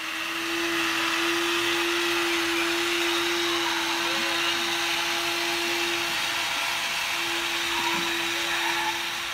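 Electric motor of a toy remote-control truck running as it pulls a loaded toy wagon: a steady whine over a whirring hiss. It falters about six seconds in and picks up again about a second later.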